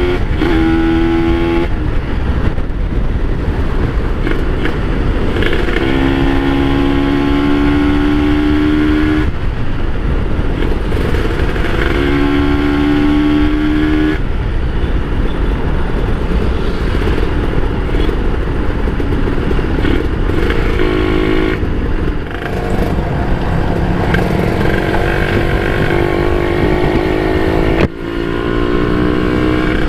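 Kawasaki Ninja RR 150 two-stroke single-cylinder engine being ridden, its note climbing in several long runs under acceleration and breaking off at each gear change, over steady rushing noise.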